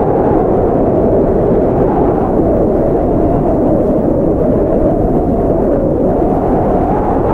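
Blizzard wind blowing hard and steadily: a deep rushing noise with a howling note that slowly rises and falls in pitch.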